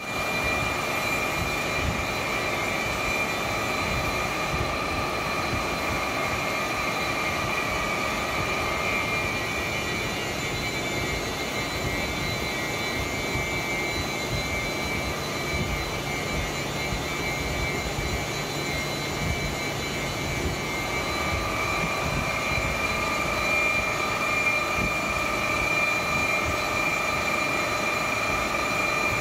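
Floor-type horizontal boring mill running, its boring bar machining the large bore of a cast housing: a steady machining noise with a high whine that fades somewhat in the middle and strengthens again about two-thirds of the way through.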